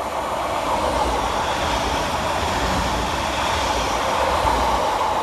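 Transport for Wales Class 231 Stadler FLIRT diesel multiple unit passing fast through the station: a steady rush of wheels on rail and engine noise, building as the train draws alongside and loudest about four and a half seconds in.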